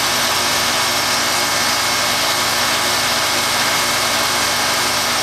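1996 Carrier 5-ton straight-cool central air-conditioner condensing unit running steadily in cooling mode: the condenser fan's even rush of air over a constant low hum.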